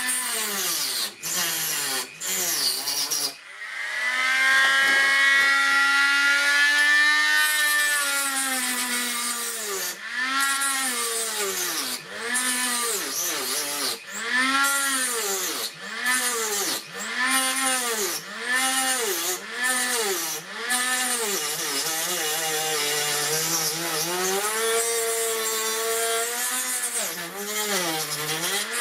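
Handheld rotary tool (Dremel-type) cutting into a thin front panel: its high motor whine sags in pitch each time the bit bites into the work and rises again as the pressure comes off, about once a second. The tool briefly stops a few times in the first few seconds.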